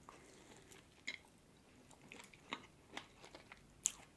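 Faint, close-miked chewing of a bite of raspberry cream tartlet: soft mouth sounds with scattered small clicks, and one sharper click near the end.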